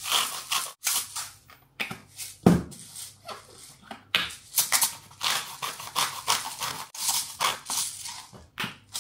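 Hand-twisted salt and pepper grinders grinding in runs of short, gritty rasping bursts, one grinder after the other, with a knock about two and a half seconds in.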